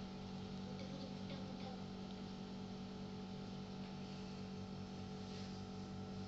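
Steady electrical hum, a low tone with several higher steady tones above it, with a few faint ticks about a second in.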